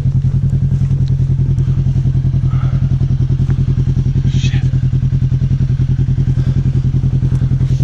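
A side-by-side utility vehicle's engine idling steadily close by: a low, even hum with a fast regular pulse.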